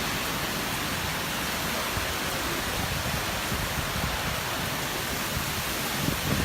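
Strong tropical-storm wind with rain: a steady rushing noise, with gusts buffeting the microphone near the end.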